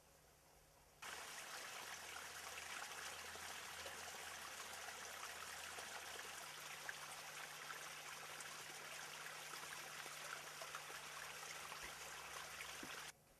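Spring water trickling and running over stones, a steady splashy hiss with fine crackle. It starts abruptly about a second in and cuts off suddenly just before the end.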